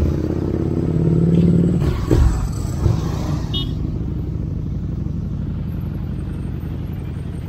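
Motorcycle engine running on the move, its pitched note clear for the first two seconds and then sinking into a steady low rumble.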